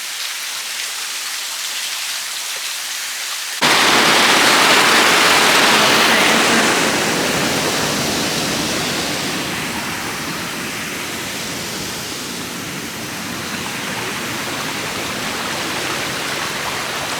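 Waterfall's falling water rushing as a steady wash of noise; a little under four seconds in it suddenly becomes louder and fuller, then slowly eases back.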